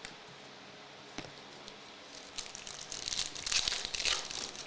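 Crinkling and crackling of trading-card packaging being handled, after a couple of light clicks. It grows loudest about three and a half seconds in and stops just before the end.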